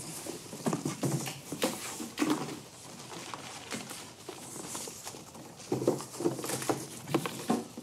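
Ring binders and cardboard archive boxes being handled: a string of light knocks, taps and paper rustles, bunched in the first couple of seconds and again near the end.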